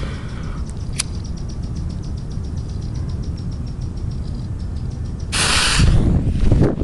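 A lighter is flicked about a second in. About five seconds in, the fuse of a homemade flash-powder device catches with a loud, sharp hiss lasting about half a second. It is followed by heavy, uneven footfalls and rustling on dry ground as the person runs off with the camera.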